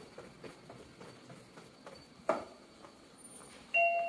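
Footsteps on a tiled station floor, with one sharp knock about two seconds in. Near the end a two-note ding-dong chime starts: the guidance chime at a Japanese station's ticket gates.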